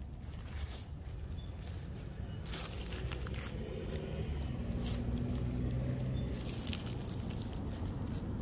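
Leaves and plant stems rustling against each other in short bursts, with a low steady hum underneath from about three seconds in.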